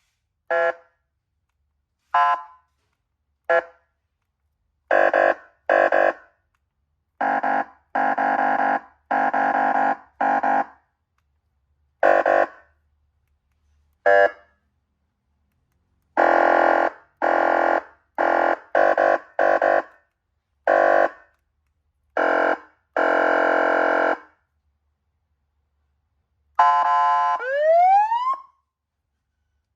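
Electronic siren module sounding a buzzy horn tone in about twenty short blasts of varying length, some in quick clusters and others a second or two apart. Near the end it starts a rising siren sweep that climbs and cuts off.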